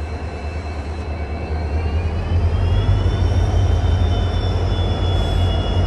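Indian Railways WDG4 diesel locomotive passing slowly close by, its engine running with a heavy low rumble. About two seconds in it grows louder and a high whine rises in pitch, then holds steady.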